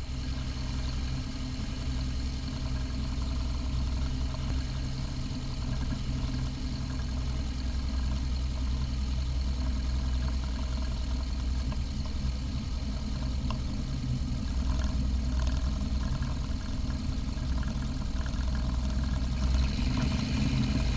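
Cessna 170's six-cylinder air-cooled Continental engine and propeller running steadily at low taxi power, a deep even drone.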